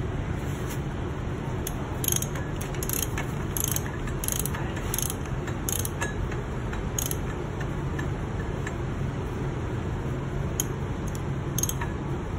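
Socket ratchet clicking in short bursts as the crankshaft of a bare Aprilia RSV4 V4 engine is turned over by hand, most of the clicks between about two and seven seconds in and two more near the end, over a steady low hum.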